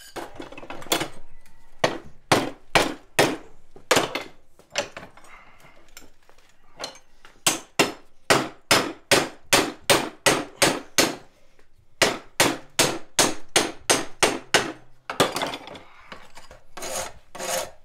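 Hand hammer striking a red-hot iron tenon, peening it over to rivet a scrolled bar in place. The blows come in runs of about two a second, with short pauses between the runs.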